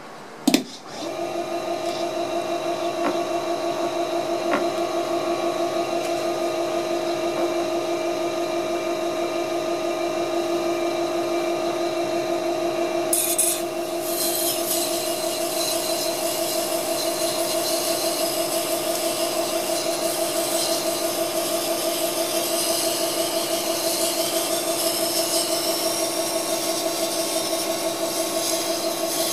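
Electric wet-stone knife sharpener: a sharp click, then its motor spins up and hums steadily with two clear tones. About halfway through, a kitchen knife blade is laid on the spinning whetstone wheel and a hissing grind joins the hum.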